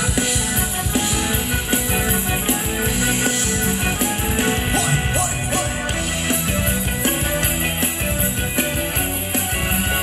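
Live band playing upbeat Thai ramwong dance music with a steady beat, an instrumental stretch between sung lines.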